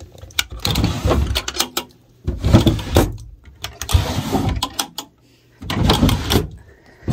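Wooden dresser drawers sliding open and shut, wood scraping on wood, four times in a row.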